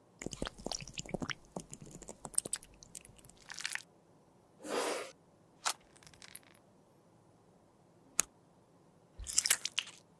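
Close-up handling of a plastic liquid-lipstick tube and squeeze-bulb dropper by fingers in rubber finger cots. A quick run of small plastic clicks and crackles comes first, then a short rustle, two single sharp clicks, and a cluster of clicks near the end as the cap goes on.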